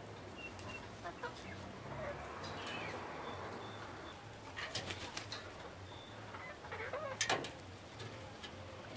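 Young Italian chickens settling on their roost, giving a few short high calls, with sharp clicks and wing flaps as birds shift and hop between perches about halfway through and again near the end.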